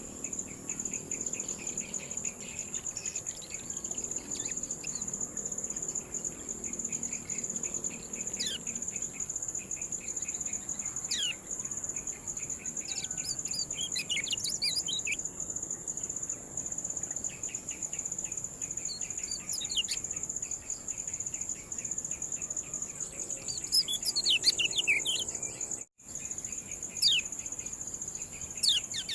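Kecial kuning giving short, sharp 'ciak' calls that sweep down in pitch, scattered singly and in quick clusters, over a steady high insect trill. The sound cuts out briefly near the end.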